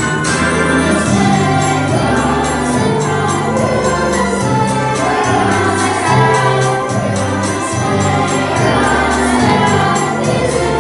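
Children's choir singing a holiday song over instrumental accompaniment, with a steady bass line and sustained notes.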